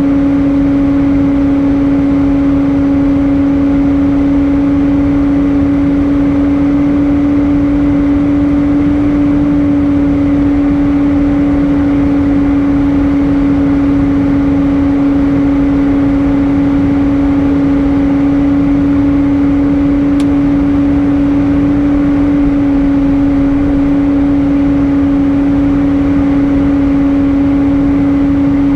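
Airbus A320 cabin noise in flight: a loud, even rush of air with a strong steady low hum running through it.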